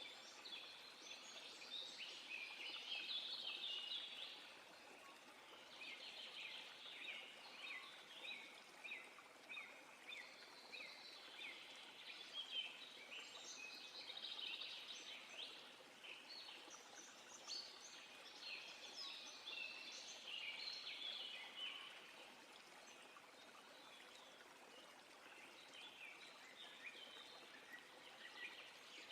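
Faint birdsong: many short chirps and trills overlapping in a dawn-chorus-like tangle, easing off a little after about two thirds of the way through, over a faint steady hiss.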